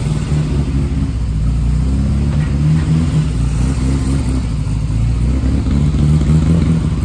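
Bugeye Sprite race car's engine running steadily, with a deep, even note.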